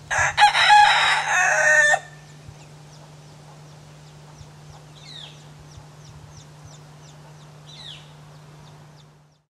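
A white Silkie rooster crows once, for about two seconds. Afterwards only faint high chirps and a steady low hum remain.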